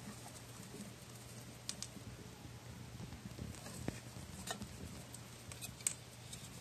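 Golden hamsters scrabbling and rustling in wood-shaving bedding: faint scattered scratches and small clicks, the sharpest a few times in the middle and near the end.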